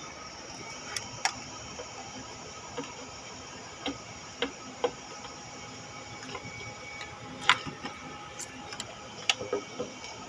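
Irregular metal clicks and taps of tools and parts being handled on an engine while its valve cover is removed, over a steady background hiss.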